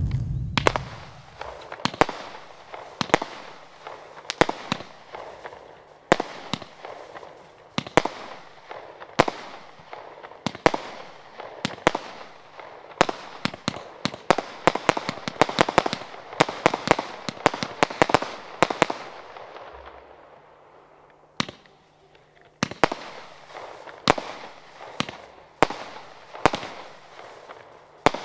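A consumer fireworks cake, the Gray Wolf display box of 4×30 shots, firing a string of sharp bangs, about one a second at first, then coming faster and thicker, with a rushing hiss between them. The firing dies down into a short lull about two-thirds through, then the shots resume.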